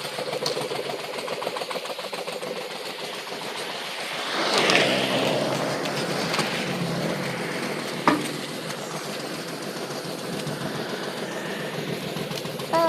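A motor running steadily with a fast, even chatter, with a louder rushing swell about four seconds in and a single sharp click a little after eight seconds.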